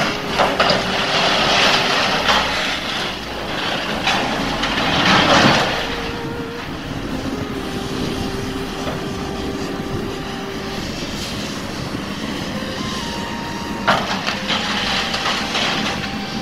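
John Deere hydraulic excavator running as it tears apart a building's wooden and steel roof. Wood and metal debris crash down a second in, around five seconds in (the loudest), and again near the end.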